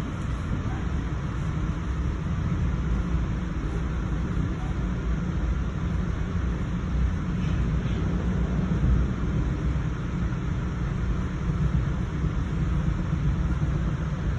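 Passenger train running at speed, heard from on board: a steady low rumble with no breaks.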